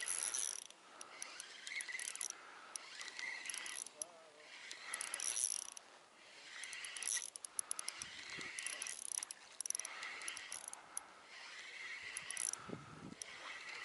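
Spinning reel being cranked in repeated bursts of about a second, with pauses between, while a lively fish is played on the line.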